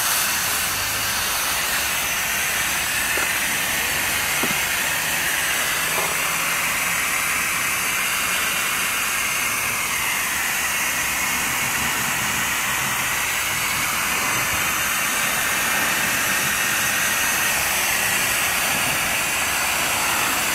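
Steady hiss of a hose spray nozzle misting water over trays of succulent seedlings.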